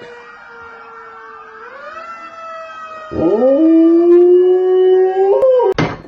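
Dog howling: a long held howl that bends upward partway, then a louder howl about three seconds in that swoops up from low, holds and slowly rises before breaking off.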